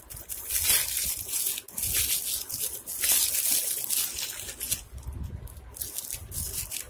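A shiny foil-and-plastic sweet wrapper being crinkled, crumpled and torn open by hand: a dense crackling that is loudest for the first four or five seconds and then softer.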